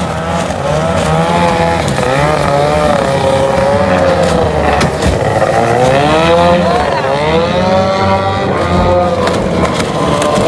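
Several racing boat engines running at high revs, their overlapping whines rising and falling in pitch as the boats pass by.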